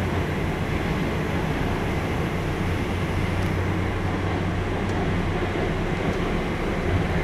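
Metro train running between stations, heard from inside the passenger car: a steady rumble of wheels and running gear with a low hum, rising slightly near the end.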